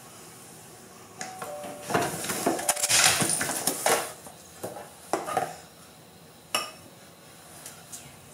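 Hard objects clattering and clinking as they are rummaged through and knocked about, a dense run that starts about a second in with a couple of short ringing clinks, then thins out to a handful of separate sharp knocks.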